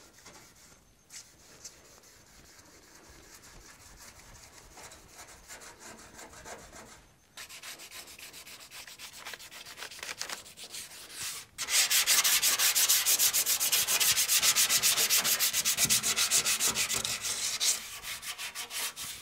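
Hand sanding of a car's steel inner fender panel: rapid back-and-forth scrubbing strokes, faint at first and much louder in the second half.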